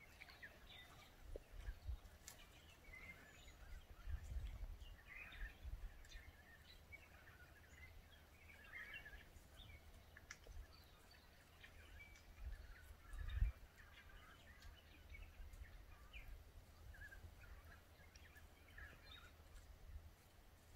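Quiet outdoor ambience: faint, scattered bird calls over a low rumble that swells a few seconds in and gives a brief stronger bump about two-thirds of the way through.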